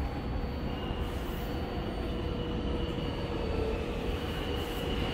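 New York City Subway R160 train in an underground station: a steady low rumble and hum with a constant mid-pitched tone, joined about a second in by a thin high tone that grows stronger.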